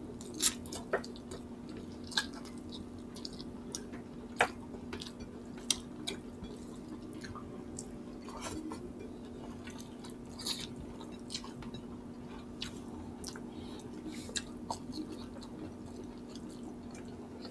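Close-miked eating sounds of people chewing chicken and rice by hand: scattered wet smacks and clicks of mouths and fingers over a steady low hum.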